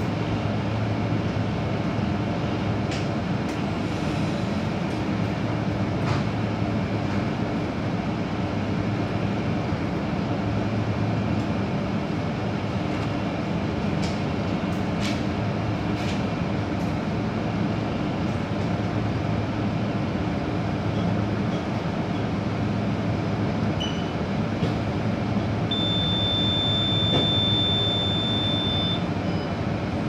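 Menumaster commercial microwave oven running with a steady hum, with a few faint ticks. Near the end its timer reaches zero and it gives one long, high beep of about three seconds, signalling the cooking cycle is done.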